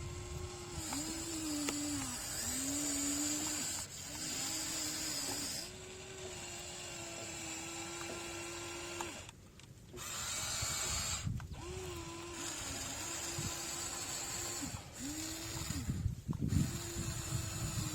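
Electric motor of a radio-controlled excavator whining steadily, its pitch dipping briefly again and again as the machine digs into hard soil. The whine stops for a moment about halfway and again near the end.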